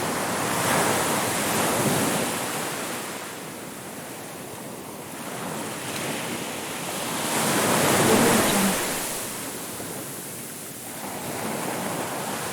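Ocean surf: waves breaking and washing up a beach in slow swells, one a second or two in and a louder one about eight seconds in, easing off between them.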